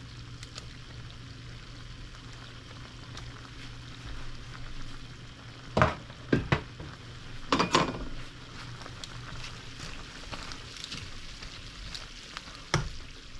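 A stainless steel pot of sour soup with bok choy bubbling as it comes to the boil, a steady hiss over a low hum. Sharp clatters of kitchen utensils come in a cluster about six to eight seconds in, and there is one more knock near the end as a metal ladle goes into the pot.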